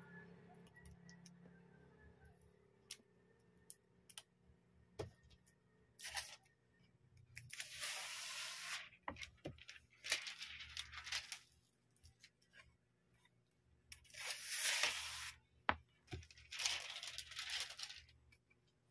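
Clear plastic protective film being peeled off a tablet book cover, heard as about five separate ripping peels of up to a second or so each. Small clicks and taps of the cover being handled come in between.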